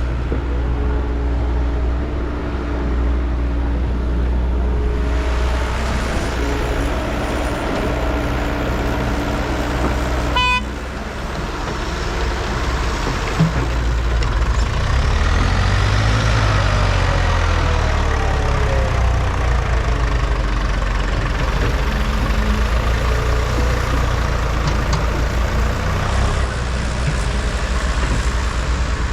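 Heavy vehicle engine running steadily. About ten seconds in the sound cuts to a louder engine whose pitch rises and then falls.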